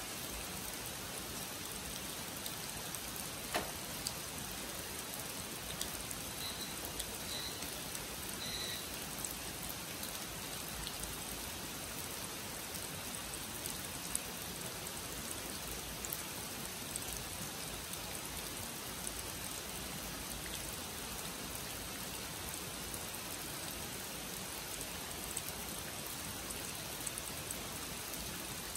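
Heavy rain falling steadily on a pond and the leaves around it, with scattered drips and a sharper tap about three and a half seconds in.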